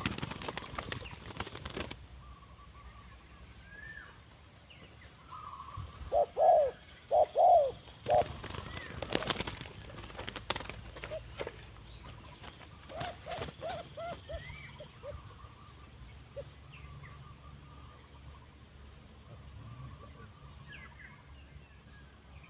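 Spotted dove cooing: a few loud coos about six to eight seconds in, then a quicker run of shorter coos around thirteen to fifteen seconds. Small birds chirp faintly, with bursts of rustling near the start and in the middle.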